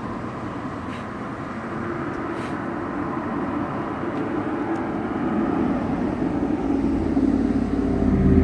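Honeybees buzzing around an open hive, a dense steady hum that swells louder over the last couple of seconds, with a low rumble joining in near the end.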